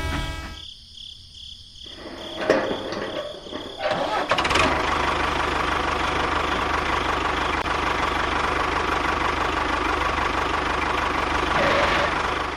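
A small engine starting: a couple of sharp bursts about two and a half and four seconds in, then running steadily until just before the end.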